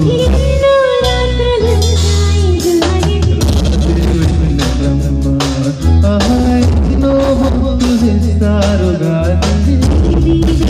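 Live band playing a Telugu film song duet: male and female voices singing over keyboard, bass notes and a steady drum beat.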